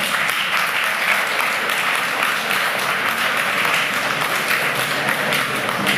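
Audience applause: many people clapping steadily, dying down near the end.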